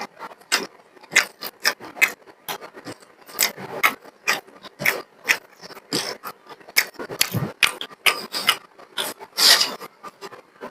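A person eating rice and beef curry close to the microphone: an irregular run of short wet chewing and mouth-smacking clicks, several a second.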